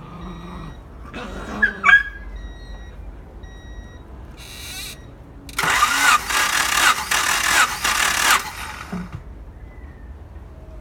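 Starter motor cranking a 1992 Honda Accord four-cylinder engine for about three seconds, in a pulsing rhythm, with the ignition disconnected so it does not fire. This is the cranking for a wet compression test, with a compression gauge in the spark-plug hole. A brief hiss comes a few seconds before the cranking.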